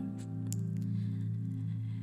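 Soft background music: a sustained chord held steady.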